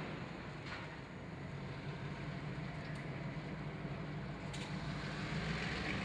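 EMD two-stroke diesel locomotive engine running with a steady low drone, with a few faint clicks over it.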